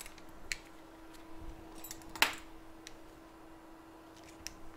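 A few sharp small clicks and taps of hand tools at a microsoldering bench, the loudest a little after two seconds in, over a steady low hum.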